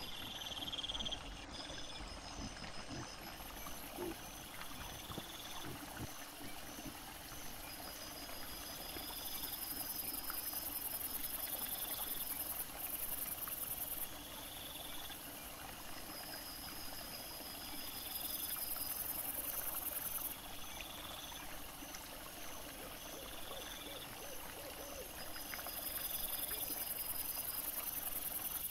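Night insects calling in a regular repeating pattern of high chirps over a steady high hiss, with a few soft rustles and knocks in the first few seconds.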